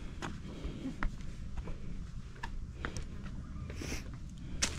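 Footsteps on rock while descending a boulder-strewn trail: scattered light clicks and scrapes of shoes on stone over a low rumble, with a sharper knock near the end.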